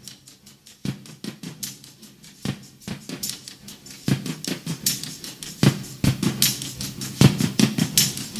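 Percussive intro of a music track: scattered sharp taps and clicks over a faint low drone, growing denser and louder towards the end.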